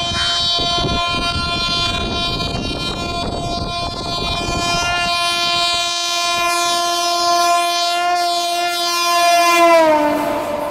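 Electric locomotive's multi-tone horn sounded long and steady. About ten seconds in, loudest as the WAP-7 passes close, it drops in pitch, and the noise of the train's wheels takes over.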